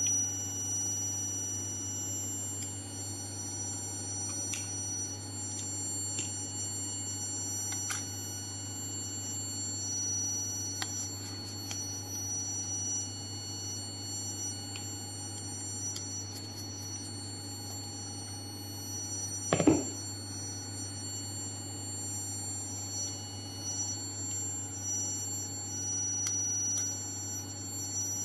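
Light clicks and short metallic rattles of a hex key and small parts handled on a vibration exciter motor's housing, with one louder knock about two-thirds of the way through. Underneath runs a steady electrical hum with a few faint high-pitched whine tones.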